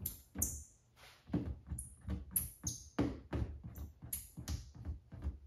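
Squeegee strokes on wet paint protection film: short, repeated swishes, about two or three a second, pressing the water out from under the film. There is a brief pause just after a second in.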